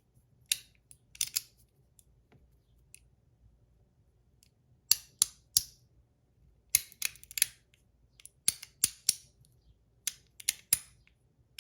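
Mackie CP2 metal fidget clicking as it is slid and snapped: sharp metallic clicks, single at first and then in quick runs of two to five, louder in the second half.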